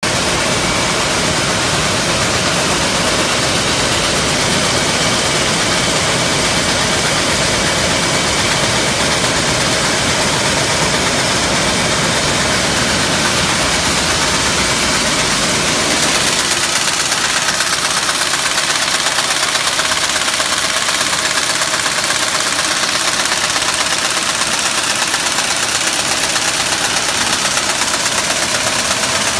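Soudronic FBB 400 can-body welding line running, a loud, steady, dense machine noise. The deepest part of the noise thins out about halfway through.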